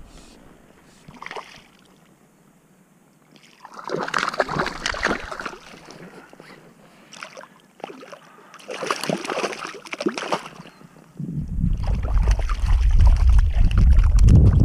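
Water splashing and sloshing as a small hooked fish is handled at the surface by hand, in two bursts about four and nine seconds in. From about eleven seconds a loud low rumble sets in and continues.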